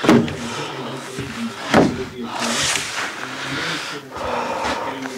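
Two sharp knocks, just under two seconds apart, as a plywood wall panel is pushed and knocked into place against the cabin side, with a brief hiss of movement between them.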